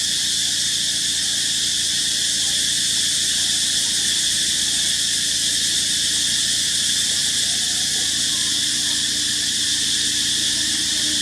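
Steady, unbroken chorus of insects buzzing, a dense high-pitched drone with no breaks, over a faint low hum.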